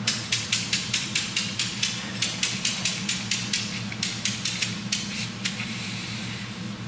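Compressed gas bleeding out of a Jarvis HPS-1 captive bolt pistol and its hose as the dead man switch is held down to relieve the pressure. It comes as a fast run of short, sharp hisses, about four a second, then as a brief steady hiss that dies away near the end.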